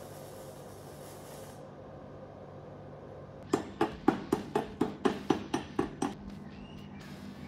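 Stick-welding arc from an inverter MMA welder with a 2 mm 6013 electrode at low current, hissing steadily, then cutting off about a second and a half in. About two seconds later come about ten quick, sharp ringing taps of a chipping hammer on the weld, roughly four a second, knocking off the slag.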